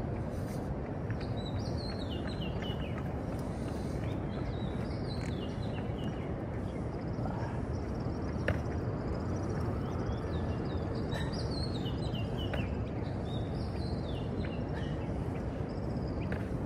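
Steady low rumble of city background noise, with small birds chirping over it again and again in short, high, falling notes.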